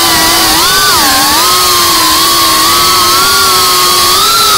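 GEPRC Cinelog 35 FPV drone's motors and propellers whining, the pitch rising and falling with the throttle as it manoeuvres.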